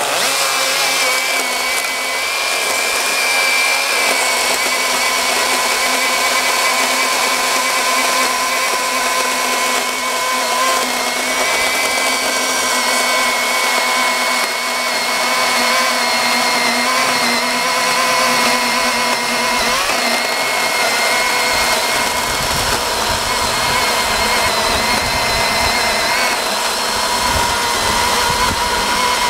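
Cordless battery-powered electric chainsaw running steadily with its chain cutting through a log, a continuous high motor-and-chain whine. A lower rumble joins in during the last third.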